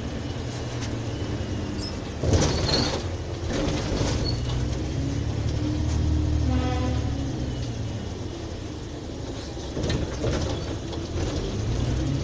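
MAN Lion's City city bus (NL223) standing with its diesel engine idling in a steady low hum. Brief bursts of noise come about two seconds in, the loudest, and again near the end, with a short pitched tone in between.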